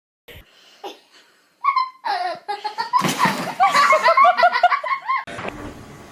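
A person laughing hard: a rapid run of short high-pitched ha's, starting a little under two seconds in and breaking off about a second before the end.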